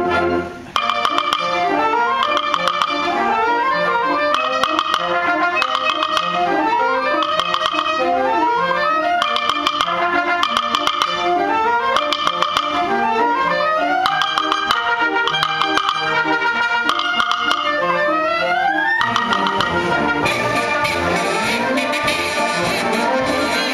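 Wind band music with a mallet percussion solo: fast runs of short struck notes, many climbing, over brass and clarinets. There is a brief break just after the start, and the whole band comes in fuller over the last few seconds.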